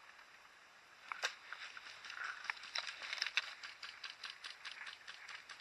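A run of irregular light clicks and taps, several a second, starting about a second in.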